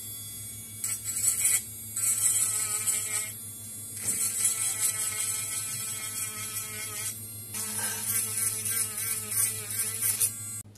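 KOMAX 12V mini rotary tool running with a steady high whine, its sanding-band drum grinding against a 3D-printed plastic part. The grinding hiss comes in several passes, swelling and dropping as the drum is pressed on and eased off.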